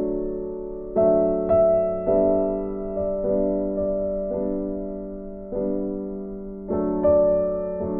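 Background music: slow, gentle piano chords struck about once every second or so, each fading away.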